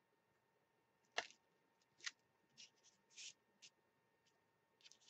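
Mostly near silence, broken by a few faint clicks and short rustles from a clear acrylic stamp block being pressed onto and lifted off a paper mailing envelope. The sharpest click comes just over a second in, a smaller one about a second later.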